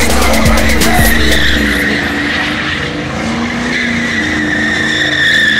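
Car tyres squealing in a steady high screech during a burnout, with the engine running hard underneath. Hip-hop music with a heavy bass beat cuts out about two seconds in.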